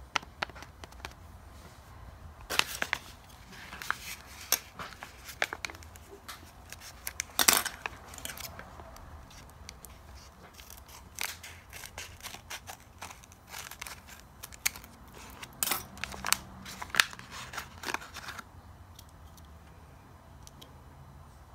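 Scissors snipping through a folded paper bag along its edge, with the paper crinkling and rustling as it is handled; a run of sharp, irregular snips and crackles that dies away near the end.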